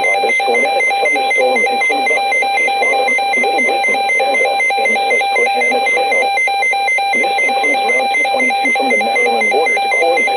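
Electronic alert tone pulsing rapidly and evenly without a break, with faint indistinct voices underneath.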